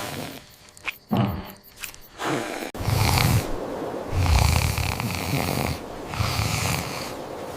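A cartoon character snoring in sleep: low, rough snores repeating about once a second from roughly three seconds in.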